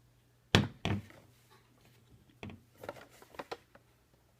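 Clicks and knocks of a small plastic flexible tripod being handled: two sharp knocks about half a second in, then a run of lighter clicks through the middle.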